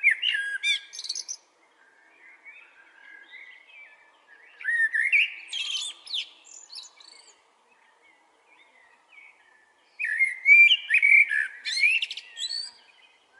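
Blackbird singing: three loud phrases of warbled whistles, each breaking into high squeaky twittering, about five seconds apart, with fainter warbling between them.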